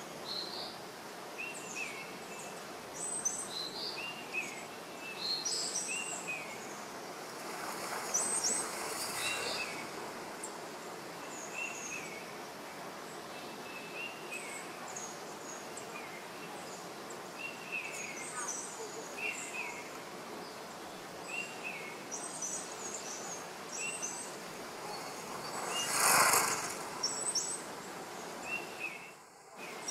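Forest ambience: small birds chirping repeatedly, short high calls about one every second or so, over a steady background hiss. A brief rush of noise, like leaves rustling, rises once faintly about a third of the way in and once more loudly near the end.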